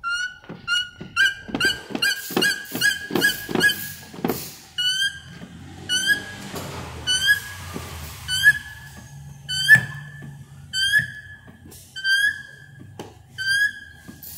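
Hand-pumped hydraulic crimper pressing a ferrule onto an air-conditioning hose. Its pump handle squeaks with every stroke, a short rising squeak each time. For the first four seconds the strokes come quickly with a knock on each, then slow to a bit under two squeaks a second.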